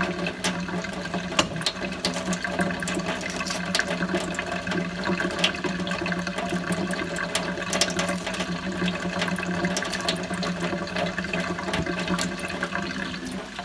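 Kitchen tap running steadily into the sink, with scattered light clicks and taps.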